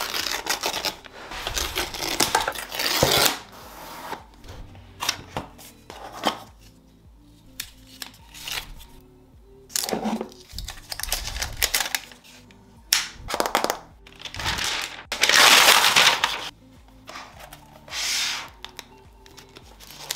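Rustling, crinkling and sliding of a new MacBook Air's cardboard box and paper wrapping being handled and unwrapped. It comes in a series of bursts, the longest and loudest about three-quarters of the way through, over soft background music.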